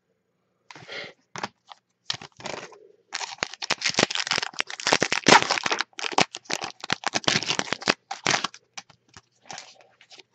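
Foil wrapper of an Upper Deck Trilogy hockey card pack crinkling and tearing as it is opened. It is a dense run of crackles starting about three seconds in and lasting about five seconds, with lighter clicks of cards being handled before and after.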